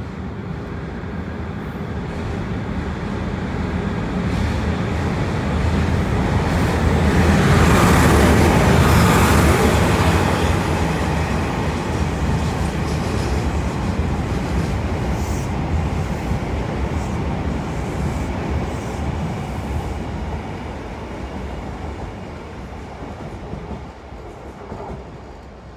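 Train hauled by DE15 diesel locomotives passing close by: engine drone and rolling wheel noise build to a loud peak about eight to ten seconds in, then fade slowly as the train draws away.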